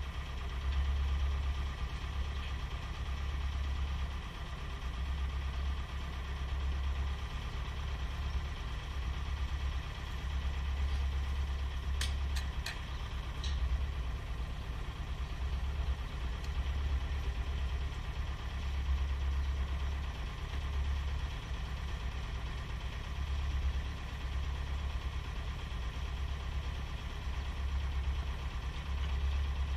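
Heavy diesel engine idling steadily, under a low rumble that swells and fades, with a few short clicks about twelve seconds in.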